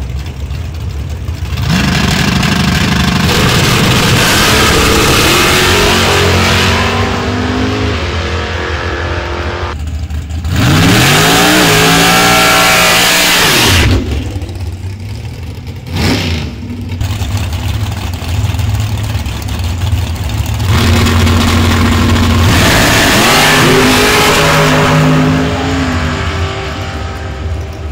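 Drag racing cars accelerating hard, engines revving up in rising sweeps that step as they change gear, several times over; the loudest run cuts off sharply about halfway through.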